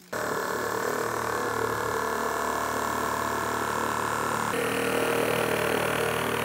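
Cordless reciprocating saw with a Diablo general-purpose blade cutting through a Rockwool ComfortBoard 80 stone-wool insulation board. The motor starts suddenly and runs steadily, and its tone changes slightly about halfway through.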